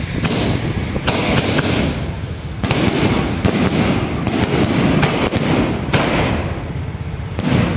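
Fireworks going off overhead in quick succession: a loud, continuous run of sharp bangs and crackles, roughly two a second.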